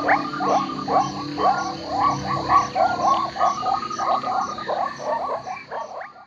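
A dense chorus of many overlapping animal calls, each short and quickly rising, over a steady high whine and a high tick about twice a second; it fades out near the end.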